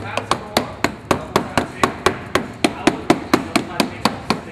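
Soft rubber mallet rapidly tapping a thin dimpled-metal exhaust heat shield under a BMW E92 M3, about four or five blows a second, knocking the shield up flush with the floorpan.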